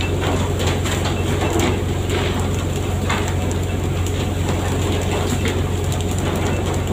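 A boat engine running steadily with a constant low hum, with irregular knocks and clatter over it.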